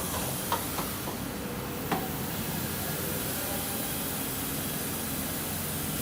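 Kira CNC tap and drill centre running with a steady hiss, with a few light clicks in the first two seconds.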